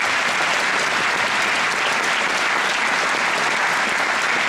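Audience applauding steadily: dense, even clapping from many hands in a theatre hall.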